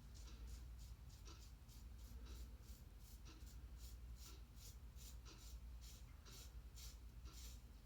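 Faint, quick scraping strokes of a double-edge safety razor with a Gillette Silver Blue blade cutting stubble, about three to four strokes a second.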